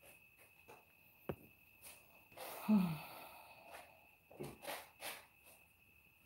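A person sighs close to the microphone about halfway through: a breath out with a short falling hum. Softer breaths or rustles follow, and there is a single click earlier.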